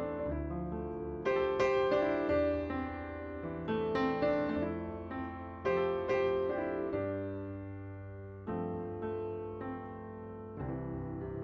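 Background piano music, slow chords and melody notes struck and left to ring.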